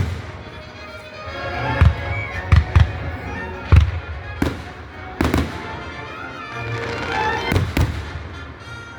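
Fireworks shells bursting overhead, about eight sharp bangs at uneven intervals, over music playing throughout.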